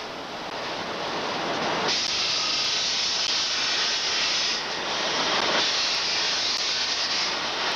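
Steady hissing rush of shovel-plant machinery working hot steel at a furnace, with no clear beat or tone; the hiss grows louder about two seconds in.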